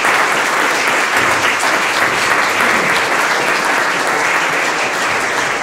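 Audience applauding steadily: many hands clapping together at an even, dense level.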